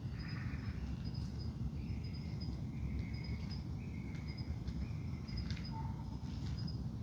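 Wild birds calling in a dawn chorus: a short high note repeated about once or twice a second, with a few lower chirps and one lower note near the end, over a steady low background rumble.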